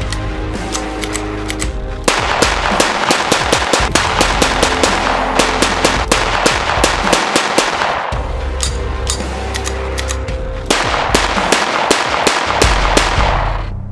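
Pistol shots cracking in quick succession over music. The music has held tones in the first couple of seconds and again around eight seconds in, and turns dense and loud in between and near the end.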